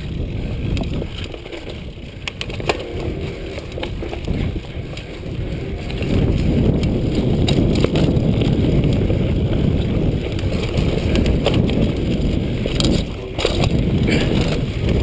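Mountain bike riding down a dirt singletrack: a steady rumble of tyres on dirt and wind on the chest-mounted microphone, with scattered clicks and rattles from the bike over bumps. It grows louder about six seconds in.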